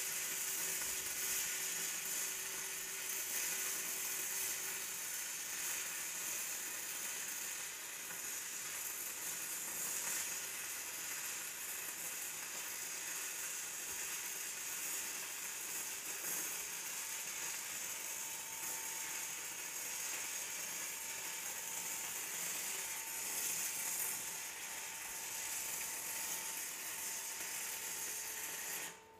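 Stick-welding arc of a 3/32" 6010 electrode on mild steel plate at 80 amps DCEP: a steady, dense crackling sizzle that cuts off suddenly near the end as the arc is broken.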